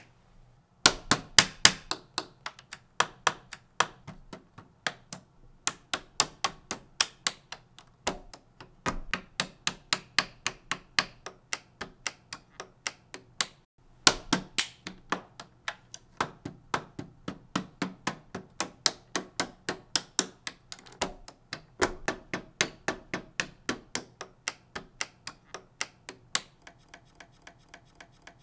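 LEGO bricks clicking and snapping together: a quick, rhythmic run of sharp plastic clicks, several a second, turning fainter near the end.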